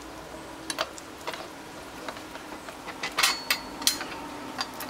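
Scattered light metallic clicks and clinks as the rear brake caliper of a Honda FMX 650 is worked back into place over the refitted rear wheel, with a quick cluster of clinks about three seconds in.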